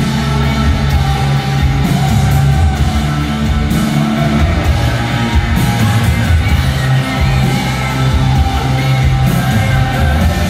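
Rock band playing live and loud: electric guitars, bass and drums through the PA, heard from the audience.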